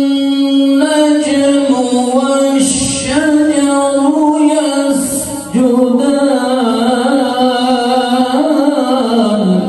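A man's voice reciting the Quran in a melodic, chanted style. It holds a long note for about the first second, then moves through ornamented rises and falls, with a short break about five and a half seconds in, and the pitch falls away near the end.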